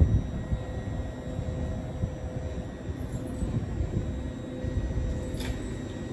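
Uneven low rumble of wind buffeting the microphone, over a steady electrical hum from an LNER Azuma train standing at the platform. There is a faint tick near the end.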